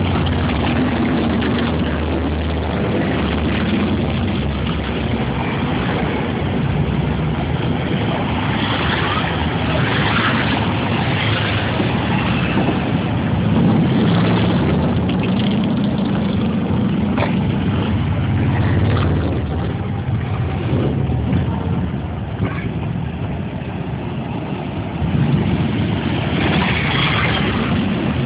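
Motorcycle engines running, with a steady low drone.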